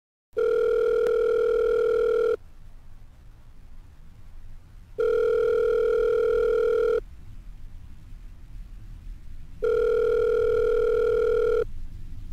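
Telephone ringback tone as a call rings out waiting to be answered: a steady tone about two seconds long, sounding three times with gaps of about two and a half seconds, and a faint line hiss between the tones.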